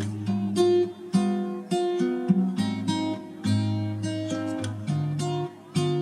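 Background music on acoustic guitar: a run of plucked notes and chords, each starting sharply and fading.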